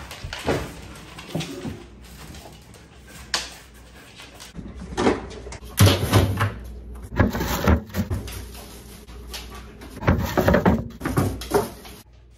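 Irregular clunks, knocks and rattles as a dog opens a refrigerator and rummages among its shelves and door bins.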